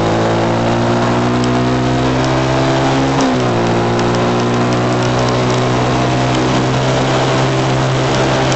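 Honda CG pushrod single-cylinder motorcycle engine running steadily under load, heard from the bike with wind and road rush over the microphone. The pitch dips briefly about three seconds in. The engine is struggling to pull uphill and is down on power since its rebuild.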